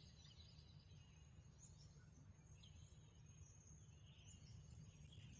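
Near silence: faint outdoor ambience with a low steady rumble and a few faint, short bird chirps.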